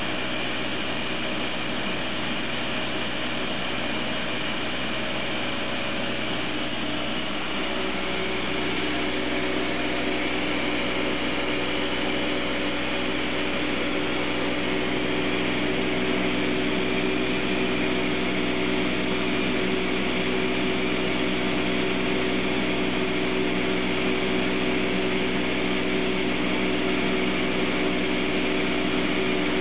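Atlas Copco ZT 55 two-stage oil-free rotary screw air compressor running under load: a steady machine hum with several steady tones, its low tones shifting slightly about eight seconds in. The controller reads 2.79 bar at the intercooler and 182 °C at the first-stage element outlet, so it is compressing.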